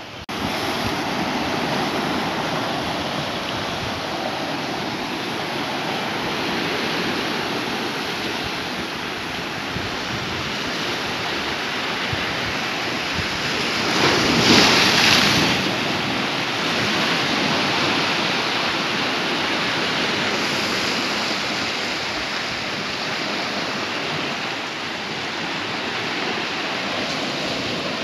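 Sea surf washing and breaking among boulders on a rocky shore, a steady rush with one louder wave surge about halfway through.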